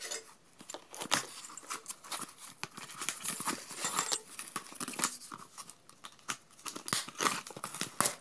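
Scissors cutting and slitting the packing tape on a cardboard box, with irregular snips, scraping and tearing of tape and cardboard, then crinkling of plastic wrap near the end.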